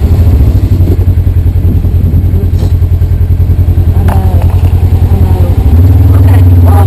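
Polaris RZR side-by-side's engine running loudly at idle, with a fast, even throb. A little before the end it steps up to a steadier, slightly higher note.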